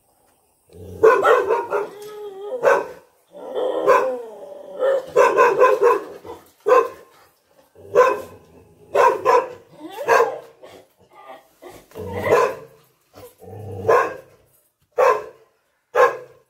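Kennelled dogs barking in repeated bursts about a second apart, some barks drawn out with a wavering pitch: agitated barking, the dogs worked up and angry.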